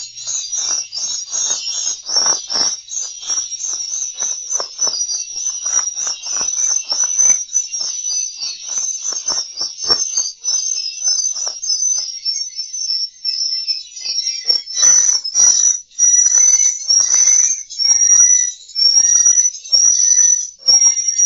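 Swiftlet lure sound: dense, high-pitched twittering chirps of swiftlets over rapid clicking. About two-thirds of the way through it turns into a run of evenly spaced, short rising chirps. This is the call and roosting sound used to draw swiftlets into a nesting house and get them to stay.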